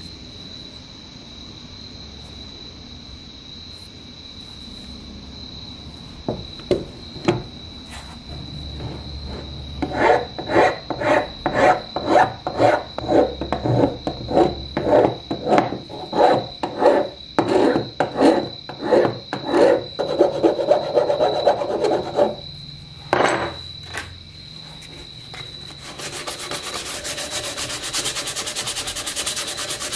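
A steel scraper blade rasps along a raw wooden revolver grip in repeated strokes, about one and a half a second, shaping the wood. Near the end sandpaper rubs the grip with a steady hiss.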